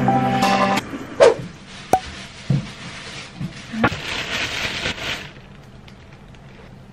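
A plastic bag of potatoes crinkling and rustling as it is handled and opened, with a few sharp knocks. The rustling is strongest about four to five seconds in.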